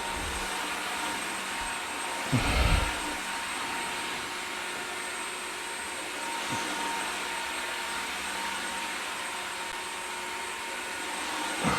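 Dreametech H12 Pro cordless wet-dry vacuum running steadily in its ultra mode, an even rushing hiss with a faint constant whine. A brief louder low sound comes about two and a half seconds in.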